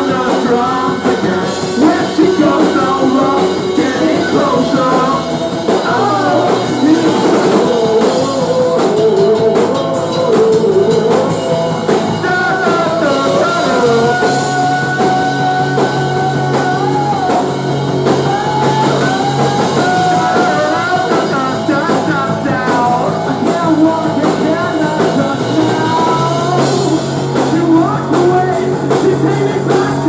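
Live rock band playing: a man singing over electric guitar and drums, with a low bass line that holds each note for several seconds before moving.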